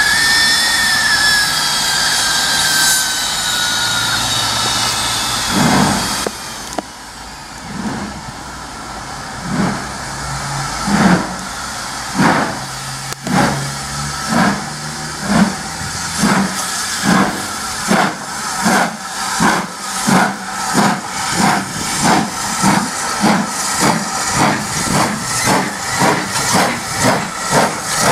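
BR Standard Class 5 steam locomotive 73129, with Caprotti valve gear, starting away: a long steam whistle over hissing steam for the first six seconds or so, then its exhaust beats begin about a second apart and quicken to around three a second as it gathers speed.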